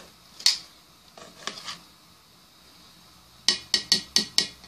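Metal kitchen tongs clicking against an enamel pot while chicken is worked in the batter: one sharp click about half a second in, a few faint taps, then a quick run of about six sharp clicks near the end.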